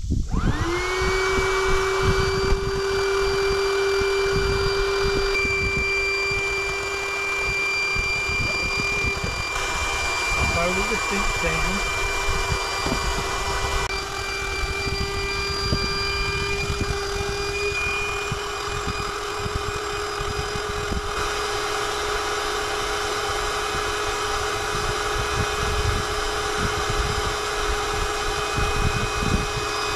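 Electric air pump supplied with a JOYTUTUS SUV air mattress, powered from the car's 12-volt socket, switching on with a quick rise in pitch and then running with a steady whine and whir as it inflates the mattress.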